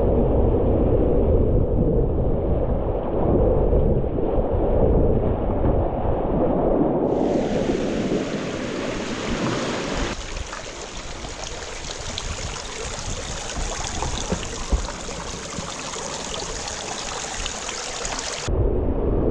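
Rushing whitewater of a river rapid heard from a kayak, with a heavy low rumble of wind buffeting the microphone for the first seven seconds. From about seven seconds the sound turns to a brighter, steady hiss of moving water, with a single sharp click about fifteen seconds in, and the low rumble returns near the end.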